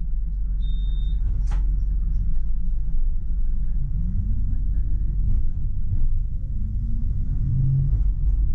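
Tram running on its track, heard from the driver's cab: a steady low rumble, with the traction motors' whine rising in pitch about four seconds in and again near the end as it picks up speed. A short high beep and a single click come about a second in.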